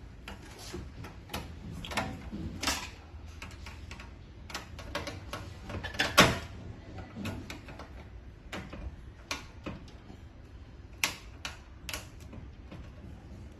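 Irregular clicks and knocks of a filling machine's parts being handled and tapped during disassembly, one louder knock about six seconds in, as a tight plastic part is worked loose.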